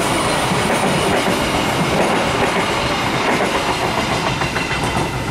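Passenger train coaches running past close by, their steel wheels on the rails making a loud, steady rumble with faint repeated clicks over the rail joints.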